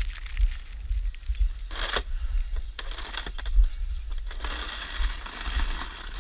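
Snow shovel scraping and crunching through snow, in a short burst about two seconds in and a longer stretch near the end, over a steady low rumble of wind on the microphone.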